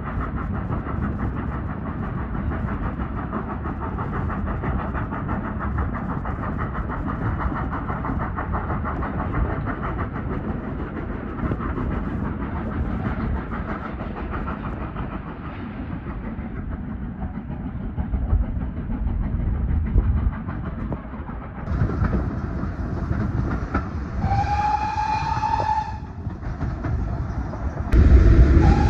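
Double-headed steam train running, a steady clattering rush heard from an open carriage window. A steam locomotive whistle sounds one note for about two seconds near the end, and the train noise suddenly gets much louder just before the end as another whistle begins.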